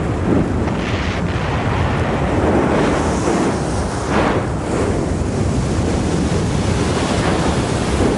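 Steady rushing roar of an erupting Hawaiian volcano's lava, rising and falling in swells.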